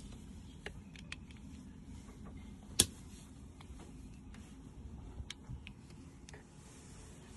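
Scattered small clicks and taps of pliers working at a hardened rubber boot on an engine part, with one sharper click a little under three seconds in.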